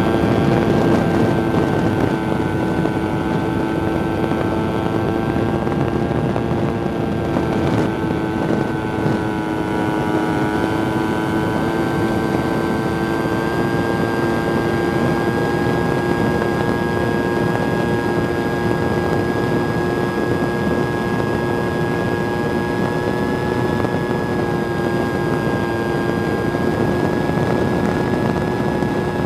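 Motor and propeller of a small radio-controlled 3D aerobatic airplane running steadily with an even, high whine, heard from a camera on board with wind rushing over the microphone. The pitch holds nearly steady and shifts slightly a few times.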